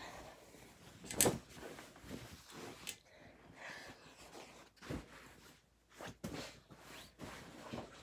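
Bedclothes rustling, with soft bumps and knocks from handling things on a bed being made. The loudest is a sharp knock about a second in.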